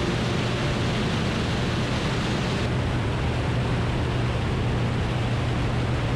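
Cessna 185 floatplane in cruise: the steady low drone of its engine and propeller under a rushing wind noise. A little under three seconds in the hiss turns duller.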